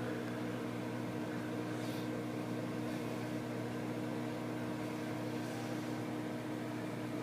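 Microwave oven running mid-cycle: a steady, even hum.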